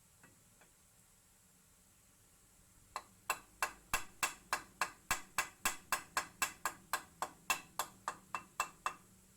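Steady rhythmic tapping, about twenty sharp knocks at roughly three to four a second, starting about three seconds in.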